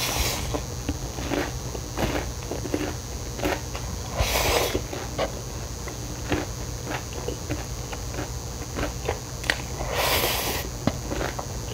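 A person eating Jjapaguri black-bean-sauce instant noodles with chopsticks, picked up by a close clip-on microphone: wet chewing with lip smacks and mouth clicks all through, and noisy noodle slurps right at the start, about four seconds in and about ten seconds in.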